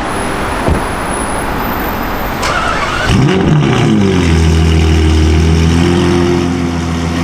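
The straight-piped 6.5-litre V12 of a Novitec N-Largo Ferrari 812 Superfast starting about three seconds in: its revs flare up and fall back, then it settles into a loud, steady high idle that eases slightly near the end.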